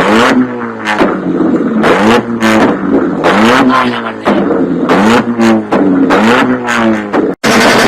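Modified car engine revved hard in quick repeated blips, its exhaust popping and banging loudly. The bangs come from a flame-thrower kit firing in the exhaust. The sound cuts off abruptly just before the end.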